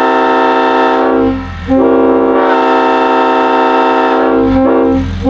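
Leslie S5T five-chime locomotive air horn, the 'Screaming 37' version, blowing a loud steady chord in long blasts. It breaks off for about half a second a second in, stutters briefly near the end, and stops just before a fresh blast starts.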